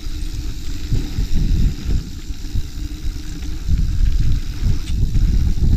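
Wind buffeting a helmet- or bike-mounted action-camera microphone, mixed with a mountain bike's tyres rumbling over a dirt trail, uneven and loudest in the low end.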